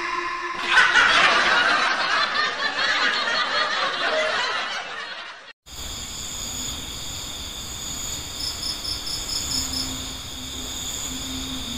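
Crickets chirping steadily as night ambience, several high tones together, with a quick pulsing trill near the end. Before that, the first half holds a dense, busy jumble of sound that cuts off abruptly about halfway through.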